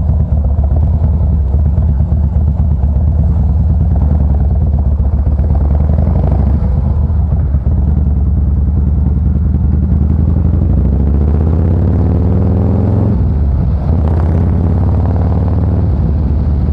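Harley-Davidson Fat Boy's V-twin engine heard through a SuperTrapp variable exhaust while riding, which the rider calls loud. A steady low exhaust rumble, then the engine revs up, drops back at a gear change about thirteen seconds in, and pulls up again.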